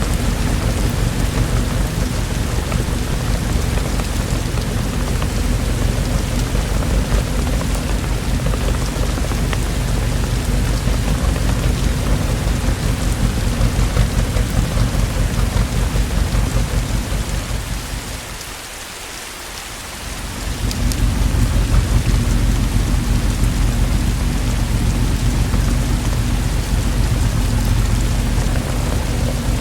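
Heavy rain falling steadily, with a deep low rumble of thunder underneath. About two-thirds of the way through, the sound briefly fades and thins for a couple of seconds, then comes back at full strength.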